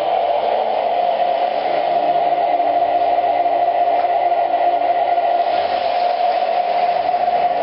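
Electric model train running around its track with a steady whine and rumble.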